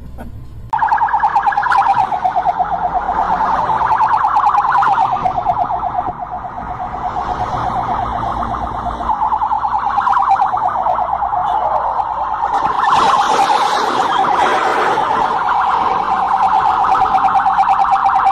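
Electronic police siren sounding loudly in a fast, rapid warble. It starts about a second in and keeps going with little change in pitch, dipping in level briefly near the middle.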